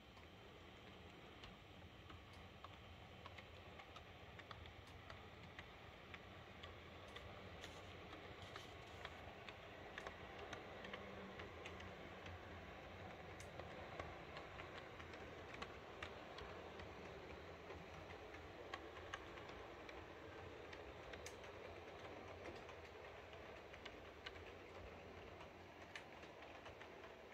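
H0-scale model train rolling along the track: a faint steady rolling sound with many small clicks from the wheels on the rails.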